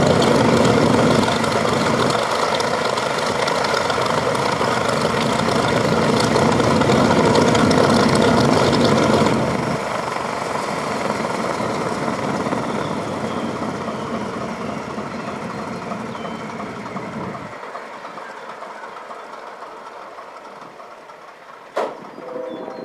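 B-29 Superfortress's Wright R-3350 radial engines running with propellers turning on the ramp. Their noise drops sharply about nine seconds in and then dies away, and there is a single sharp click near the end.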